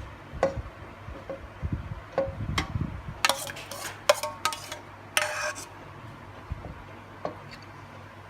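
A utensil stirring a thick fish curry mixture in a stainless steel pot, clinking and clanking against the pot's metal sides several times, with short ringing after the louder knocks. It eases off after about six seconds, leaving only a couple of light clicks.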